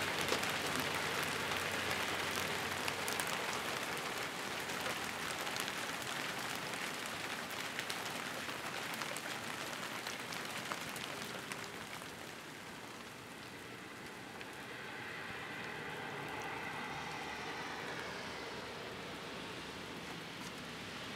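Hail mixed with snow pellets pattering on roofs and ground: a dense, rain-like hiss full of tiny ticks that eases off about halfway through.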